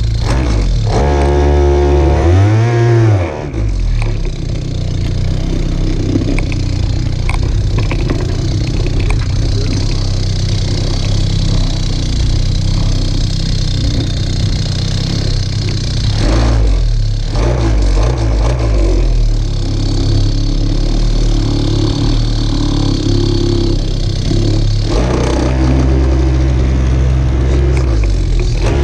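Motorbike engine revving up for about two seconds, then dropping back and running steadily at idle.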